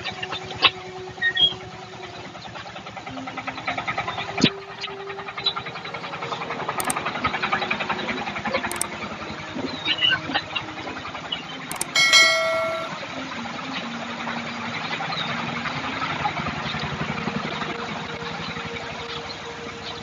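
An engine running steadily throughout with an even low pulsing, and a brief pitched honk about twelve seconds in.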